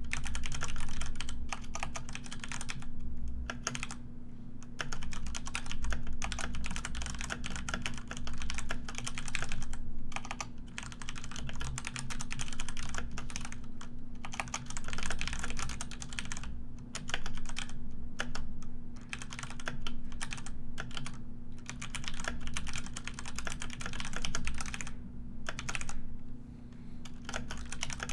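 Computer keyboard being typed on continuously: quick runs of key clicks broken by short pauses every second or two, over a steady low hum.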